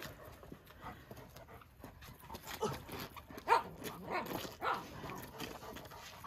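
A dog vocalizing in a few short calls that bend up and down in pitch, the loudest about three and a half seconds in, as it tugs on a ring toy.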